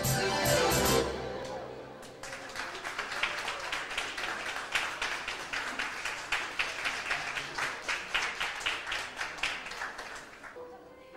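A piano accordion piece ends on a held chord, followed by audience applause that gradually thins out. Near the end a single steady accordion note begins.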